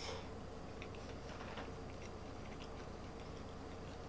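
A person chewing food close to the microphone, with faint scattered soft mouth clicks over a steady low hum.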